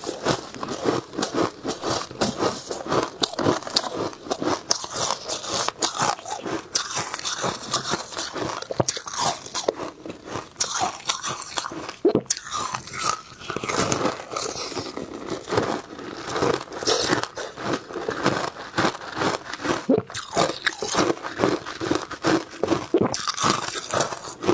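Packed shaved ice being bitten and chewed close to a clip-on microphone: dense, crisp crunching, several crunches a second throughout.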